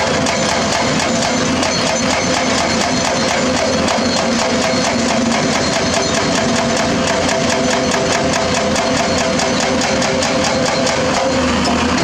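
Hydraulic breaker hammer on a Doosan DX300LCA excavator pounding rock in a rapid, even hammering, over the steady drone of the excavator's diesel engine working under load.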